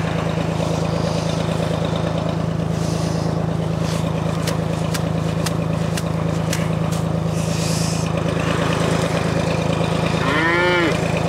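John Deere 820's three-cylinder diesel engine running steadily, with a few sharp clicks in the middle. Near the end a cow moos once.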